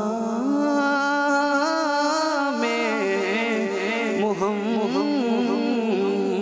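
A man singing a naat into a microphone, drawing out long melismatic notes that waver and glide up and down in pitch.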